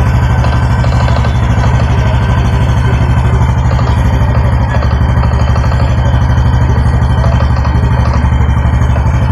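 Honda Biz 125 single-cylinder four-stroke engine idling steadily, with a light knock on the clutch side and a running noise. The owner believes the knock is the clutch basket or clutch with play, and takes the noise for a failing oil pump.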